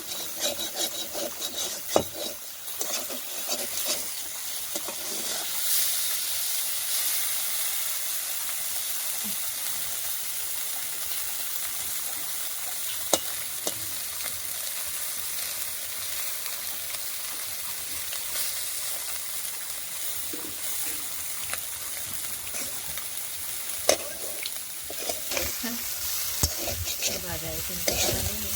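Small fish frying in hot oil in a pan: a steady sizzle, with a few sharp clicks and the scraping of stirring near the start and again near the end.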